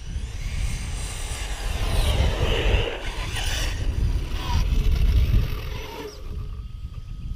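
Electric RC monster truck with a 1717 brushless motor driving in on asphalt: motor whine rising in the first second, with tyre and drivetrain noise, dying away about six seconds in as the truck stops. Wind rumbles on the microphone throughout.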